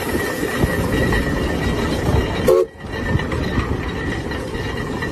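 Steam traction engine running, with exhaust chuffs and clanking gears over a steady hiss. A short low tone sounds about halfway, and the sound drops out for a moment just after.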